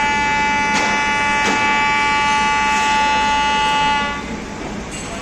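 Horn of an approaching diesel locomotive hauling a freight train: one long, steady blast that cuts off about four seconds in. Two short knocks sound under it in the first couple of seconds.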